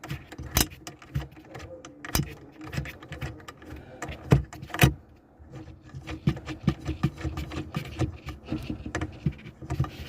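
Irregular clicks, taps and light rattles of hands and tools working on car interior trim, with a few sharper knocks in the first five seconds and a quieter moment just after.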